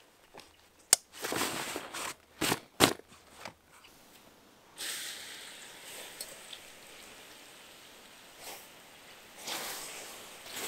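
Backpack buckles clicking shut with straps and fabric rustling, including one sharp snap about a second in. Then water poured from a steel mug onto hot campfire embers hisses as it turns to steam, fading slowly and hissing up again near the end as more is poured.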